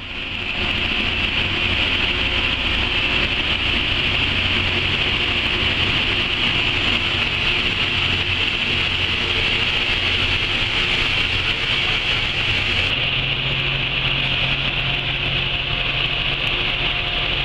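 Loram rail grinder at work on the rail: a loud, steady grinding hiss from its grinding stones against the steel, over the low drone of its engines. It swells up within the first second and holds steady.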